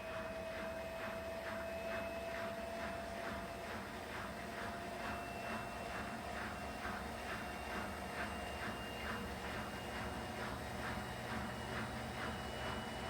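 Bosch WAK20260tr washing machine on its spin-only program: the motor's whine climbs slowly and steadily in pitch as the drum speeds up, with a regular swish a few times a second from the turning drum.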